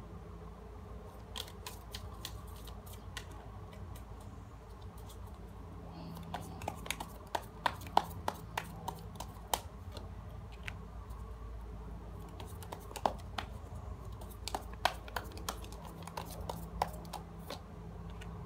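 Tarot cards being shuffled and handled, with irregular sharp clicks and snaps that come thickest around the middle and again near the end, over a steady low hum.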